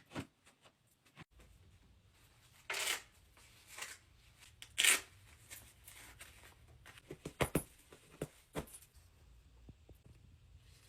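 Rustling and handling noises of things being moved about: two louder rustles about three and five seconds in, then a few sharp clicks.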